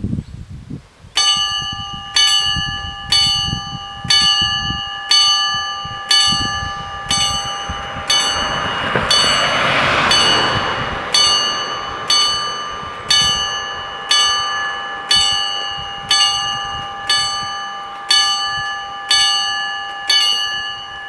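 Level-crossing warning bell ringing, one ringing strike with several pitches about once a second, starting about a second in: the crossing is warning of an approaching train as its lights come on and its barriers lower. A rushing noise swells and fades around the middle.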